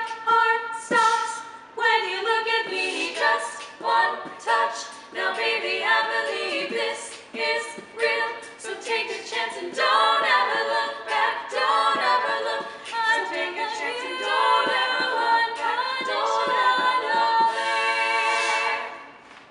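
Female a cappella quartet singing a pop arrangement in close harmony, with no instruments; the singing stops near the end.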